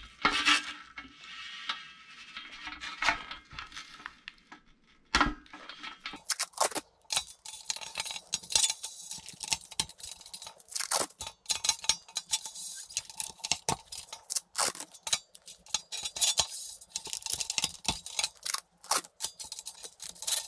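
Masking tape being unrolled and pressed down onto a metal plate by gloved hands: a noisy stretch of tape peeling off the roll at the start, then a long run of quick crackles and light taps as the tape is smoothed and handled.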